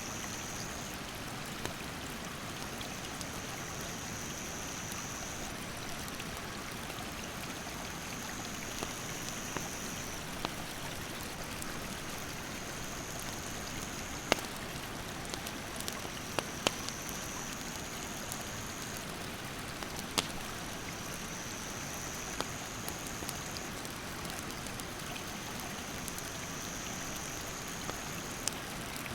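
Steady rush of a mountain stream, with sharp pops and crackles from a wood campfire scattered through it, the loudest about halfway. An insect's high buzzing call repeats in runs of about three seconds with short breaks.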